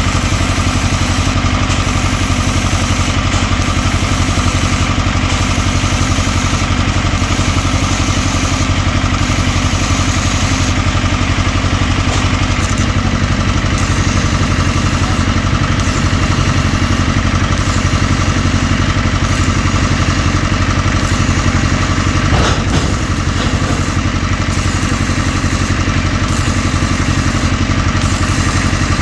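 An engine running steadily at a constant speed, with a single brief knock about twenty-two seconds in.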